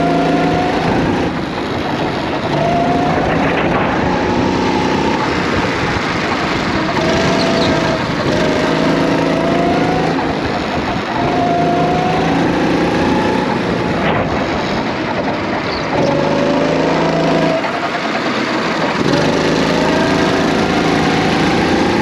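Racing kart's engine heard from the driver's seat, revving up in long rising sweeps as the kart accelerates and dropping back each time the throttle is lifted for a corner, again and again.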